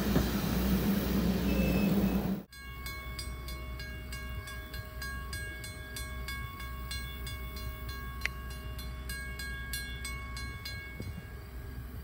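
Passenger train coach rolling past close by, a loud rumble of wheels on the rails. About two and a half seconds in, the sound cuts to a much quieter field where insects chirp in a fast, even rhythm over faint steady tones.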